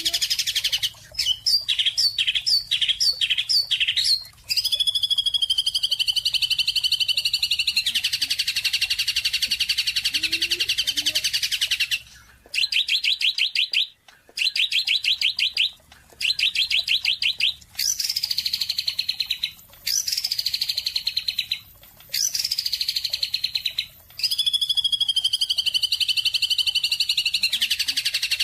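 A small songbird singing long, rapid trilled phrases, some with falling glides, broken by short pauses.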